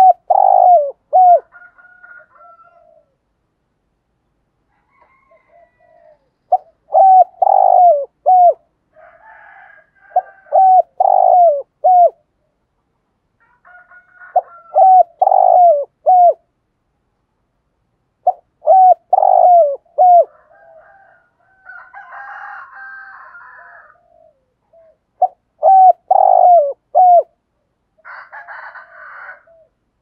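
Spotted dove cooing: short phrases of three to five quick, falling coos, repeated about six times with pauses of a few seconds between.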